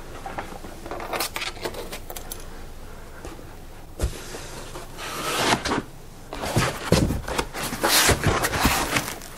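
Foam packing insert being handled and lifted out of a cardboard box: light clicks and rustles, a knock about four seconds in, then a run of scraping and rubbing of foam against cardboard.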